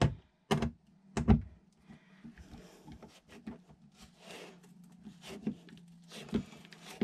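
Manual screwdriver driving a wood screw into a wooden cabinet wall: two sharp knocks near the start, then a run of small faint clicks and scrapes as the screw is turned. A low steady hum runs underneath.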